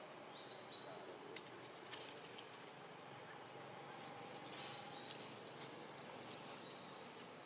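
Faint outdoor background with three short, high chirping calls, each rising then holding briefly, and a few light clicks.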